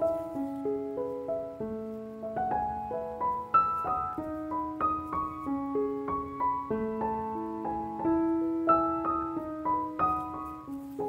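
Soft background piano music: a slow melody of single struck notes over held lower notes.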